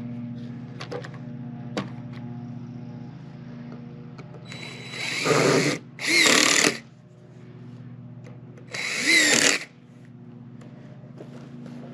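DeWalt cordless impact driver driving screws through a wooden block into a purlin, in three short runs: one winding up about four and a half seconds in, a second right after it, and a third about nine seconds in. A steady low hum runs underneath.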